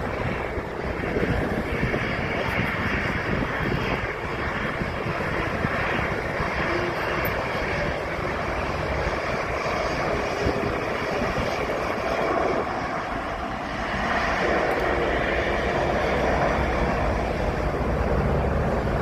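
Twin jet engines of an Airbus A320-family airliner running at taxi power, a steady jet roar and whine, with wind buffeting the microphone underneath.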